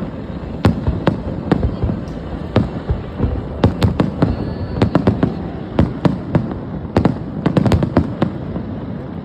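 Aerial fireworks bursting in a rapid, irregular string of sharp bangs, several close together in clusters, over a low continuous rumble of echoes.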